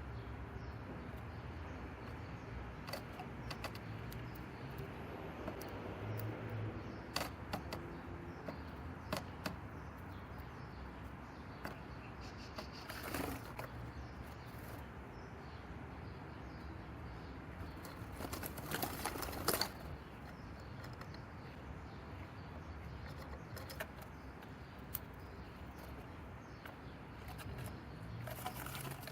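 Small birds moving about a garden cat house: scattered light taps and short wing flutters over a quiet steady background, with a brief busier flurry about two-thirds of the way through.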